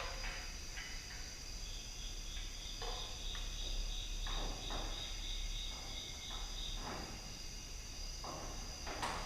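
Crickets chirping in a high, pulsing rhythm of about three chirps a second, over a steady high trill. Scattered knocks and rustles of handling are heard, the sharpest near the end.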